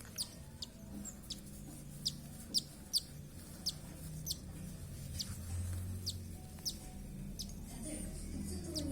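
Baby parrot chicks giving short, high-pitched squeaks that fall in pitch, about a dozen spaced irregularly: the begging calls of chicks being hand-fed formula.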